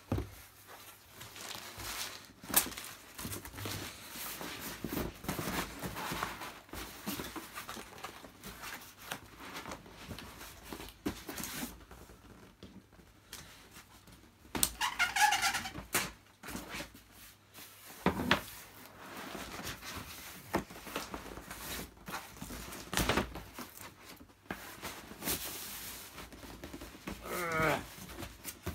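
Cardboard box flaps and scrunched newspaper rustling and knocking as a box is closed, with packing tape pulled off a handheld tape gun in short screeches, one about halfway through and another near the end.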